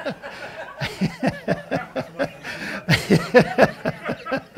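A man laughing into a headset microphone: a run of short, quick chuckles.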